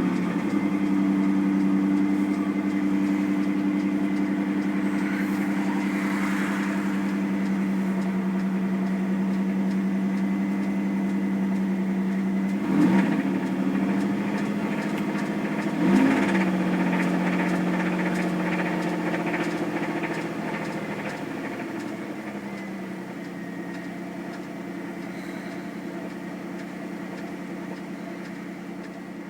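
1997 Camaro's 3800 V6 idling just after starting, blipped up briefly twice, then idling on and growing quieter. The owner says the engine knocks and is bad.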